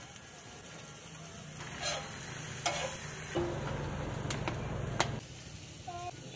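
Food sizzling in a wok as chowmein is stir-fried, with a few sharp metal clinks of the spatula striking the pan.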